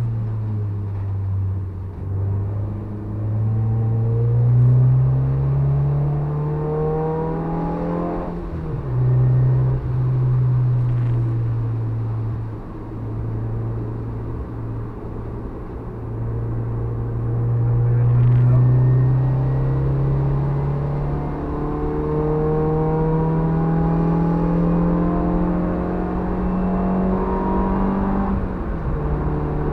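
Honda Civic EG6's B16A2 1.6-litre VTEC four-cylinder engine, heard from inside the stripped-out cabin, revving up under acceleration on track. The pitch drops sharply at a gear change about eight seconds in, holds steady for a long stretch, then climbs again to a second drop near the end.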